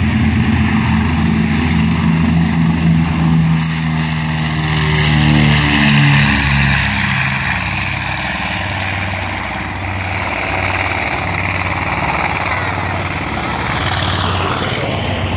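A B-25 Mitchell bomber's two Wright R-2600 radial engines at takeoff power: a loud drone that swells as the plane passes, dropping in pitch about five seconds in, then falling back to a steadier, quieter drone as it climbs away.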